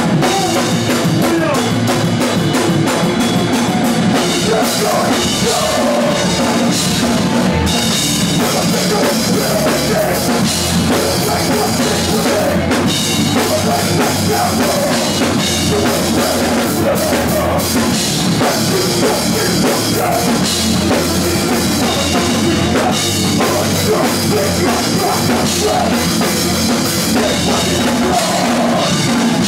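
Loud live rock band playing with a full drum kit and bass guitar.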